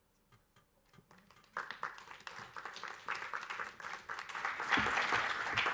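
Audience applauding. It starts about a second and a half in after near silence and builds to its loudest near the end.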